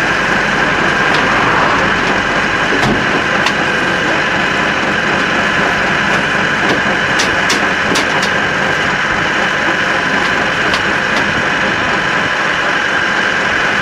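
Fire engine idling steadily close by, with a few light clicks midway.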